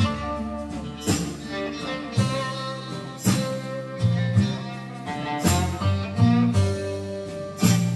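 Instrumental background music with a steady beat, about one beat a second.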